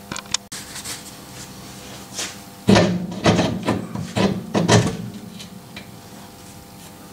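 The lower eye of a Volvo V70's worn Nivomat rear shock absorber being worked by hand off its bolt stud, metal scraping and knocking. There are a couple of light clicks at the start, then about five louder scrapes and knocks around the middle.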